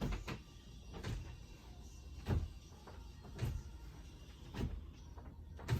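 Feet landing during skater jumps: a dull thud about once a second, six in all.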